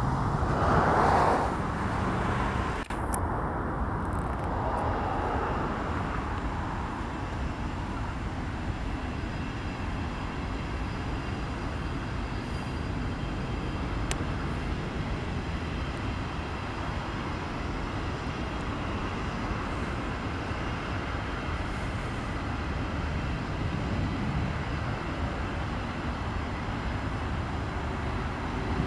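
Double-stack container freight train rolling past at a distance: a steady rumble of wheels on rail, with a brief louder swell about a second in.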